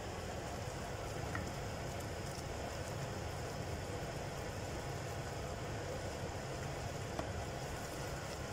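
Butter and flour sizzling steadily in a stainless steel pot as they are stirred with a wooden spoon, the first stage of a roux for white sauce, with a couple of faint spoon ticks.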